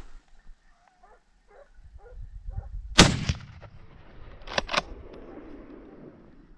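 A single close rifle shot, sharp and loud with a rolling echo, about three seconds in. Two sharp clicks follow about a second and a half later.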